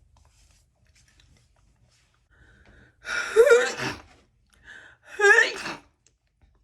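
A woman sneezing twice, about two seconds apart, the first about three seconds in. Each sneeze is preceded by a short, sharp in-breath.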